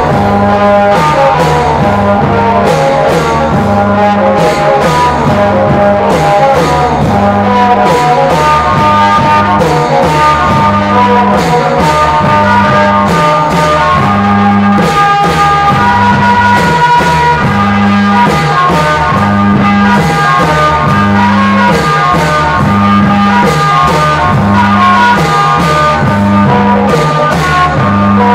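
Music with a steady beat, a repeating bass line and long held melody notes.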